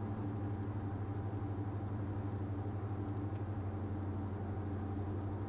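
Twin propeller engines of a Diamond DA42 running steadily at full power in a go-around: a low, even drone with a fast, regular throb.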